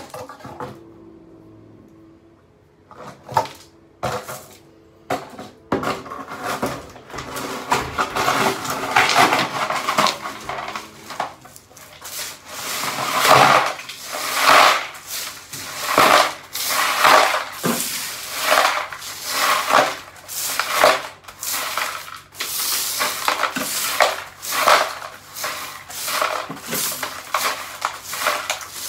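A broom sweeping a pile of shattered glass from a broken shower sliding door across a tiled floor into a plastic dustpan. It makes repeated crunching, clinking strokes about once a second, starting a few seconds in after a few separate clinks.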